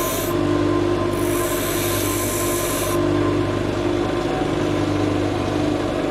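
Bench grinder running steadily with its motor hum while a thin metal dart tip is sharpened against the wheel: a high hissing grind briefly at the start and again from about one to three seconds in, then the grinder runs on with nothing touching the wheel.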